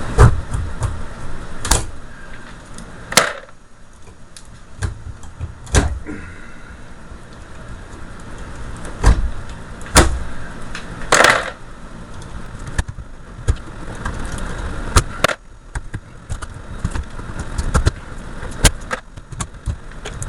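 Pliers pulling the copper winding bars out of an automotive starter motor armature: a string of irregular sharp metallic clicks and clinks over a low steady rumble.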